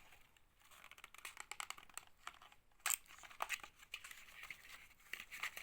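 Foil and plastic medicine blister pack crinkling and crackling as tablets are handled and pressed out, with one sharp pop about three seconds in.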